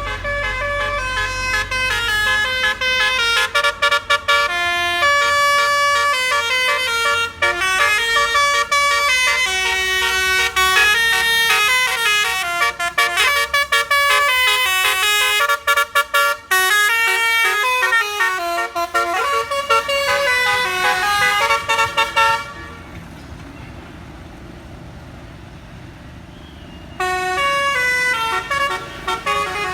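Telolet basuri bus horn, a multi-tone musical horn, playing a fast melody of stepped notes. It breaks off for about four seconds, leaving only road noise, then starts the tune again near the end.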